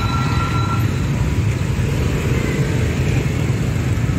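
Dense scooter and motorbike traffic crossing a railway level crossing: the small engines of many bikes run together in a steady, continuous rumble.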